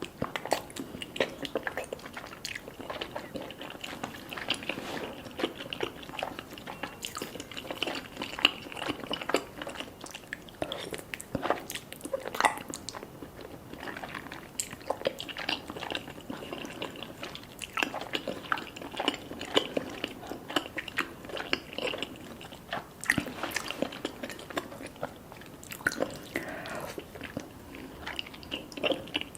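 A person chewing and biting food close to the microphone, with many short sharp mouth clicks throughout.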